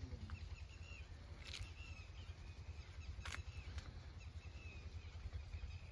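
Open-field ambience: small birds chirping briefly every second or so over a steady low rumble, with a few sharp clicks, one about one and a half seconds in and two more past the middle.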